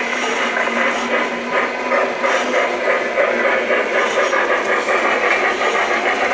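LGB G-scale model of the RhB 'Heidi' 2-6-0 tank locomotive running along the track: its motor and gear drive whirr steadily under a fast, even clicking.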